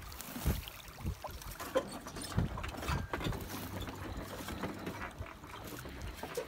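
Metal shovel scooping manure from a heap and flinging it across a field: irregular scrapes of the blade in the soil and soft thuds.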